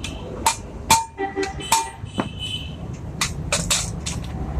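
Hammer blows on metal: about seven sharp strikes at uneven intervals, several leaving a brief metallic ring.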